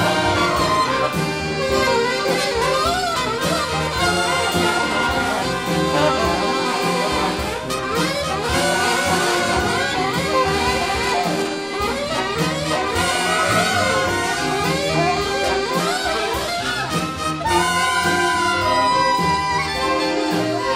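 Instrumental background music led by brass instruments, playing continuously at a steady level.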